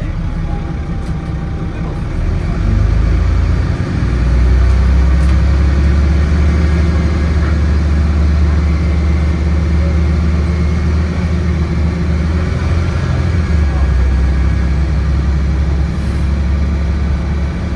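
Dennis Trident double-decker bus's diesel engine, with Voith automatic gearbox, pulling hard under way, heard from inside the passenger saloon as a loud, low drone. It builds about two seconds in, dips briefly about four seconds in, then runs on loud and steady.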